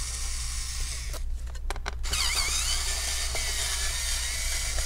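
Small cordless electric precision screwdriver whirring as it backs out a laptop bottom-cover screw. The whirring stops for most of a second about a second in, with a few clicks, then resumes with a wavering whine.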